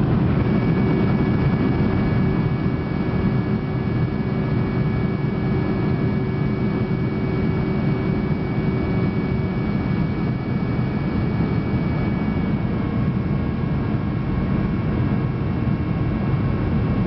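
Cabin noise inside a Boeing 737 with flaps out for landing: a steady roar of the jet engines and rushing air, with a few steady whining tones over it. A low hum drops out about ten seconds in, and a new mid-pitched tone comes in a few seconds later as the engine note shifts slightly.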